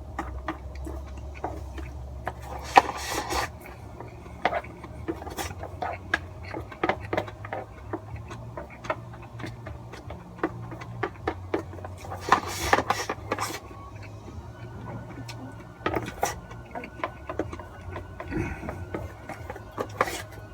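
Eating instant cup yakisoba: frequent small clicks and scrapes of chopsticks against the cup, with two longer noodle slurps, a few seconds in and about twelve seconds in.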